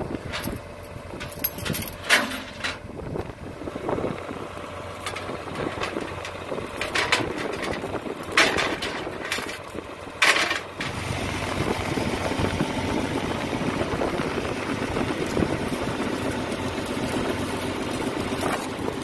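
Heavy steel tie-down chains rattling and clanking as they are handled and hooked over a tractor on a trailer's metal-and-wood deck, with several sharp metal clanks in the first half. From about halfway through, an engine idles steadily underneath.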